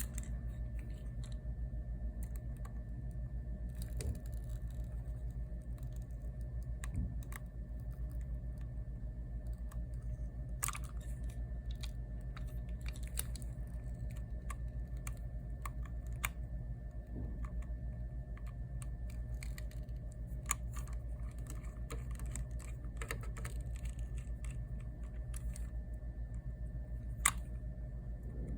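Scattered small clicks and taps of repair tools and parts being handled on a smartphone, over a steady low electrical hum.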